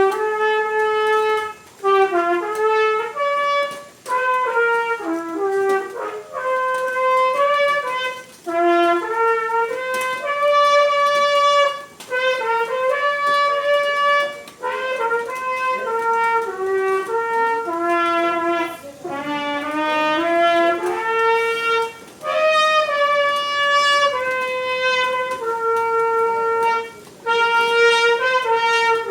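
Solo trumpet playing a melody, one note at a time, in phrases of a few seconds separated by short pauses, with no accompaniment.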